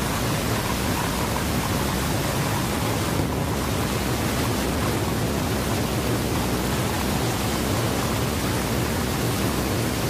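Steady rushing wind noise on the microphone of the camera mounted on a Slingshot ride capsule.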